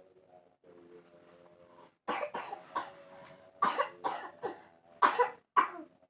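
A person having a coughing fit: about eight hard coughs in quick succession, starting about two seconds in and loudest near the end. It is a severe, lingering cough that has not cleared up.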